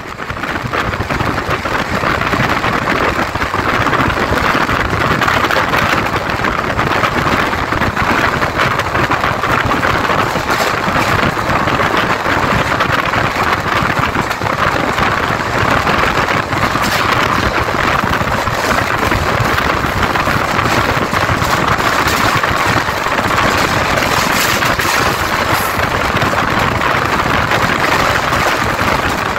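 Steady running noise of a moving passenger train, heard from an open coach doorway: wheels rolling on the rails and air rushing past.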